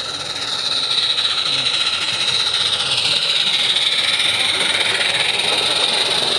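Small live-steam 16 mm scale garden-railway locomotive running past at close range, a steady hiss of steam exhaust that grows louder about a second in as it nears.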